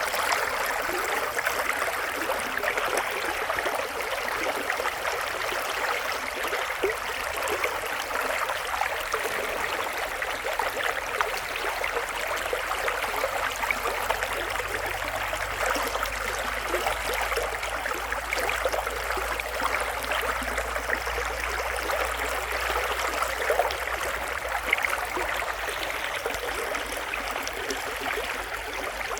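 Shallow river running: a steady rush of flowing water, flecked with small splashes.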